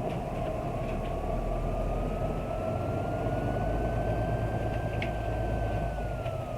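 Isuzu Erga bus's 6HK1-TCC diesel engine and drivetrain running under way, heard inside the bus. A steady rumble grows louder about two seconds in. A single whine climbs in pitch, holds, and falls away near the end.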